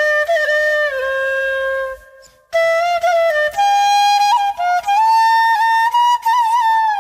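Solo flute playing a melody of held notes joined by slides and quick ornaments, breaking off for a moment about two seconds in.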